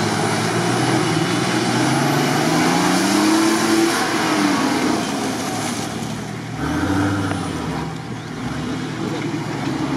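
Nissan Patrol's engine revving hard under load as it climbs a steep, muddy bank, its pitch climbing over the first few seconds, easing about six seconds in, then a short burst of revs.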